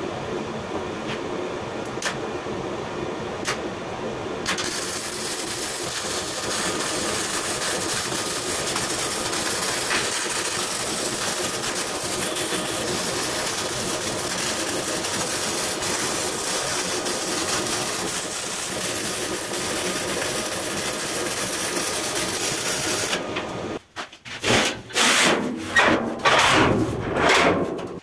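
Arc welding the forged scroll legs onto a steel table frame: a steady crackling hiss that starts about four seconds in and stops a few seconds before the end. Several short, loud noisy bursts follow near the end.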